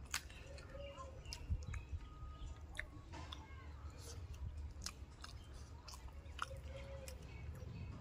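A person eating fish curry and rice with the fingers: close chewing and wet mouth sounds, with many short irregular clicks.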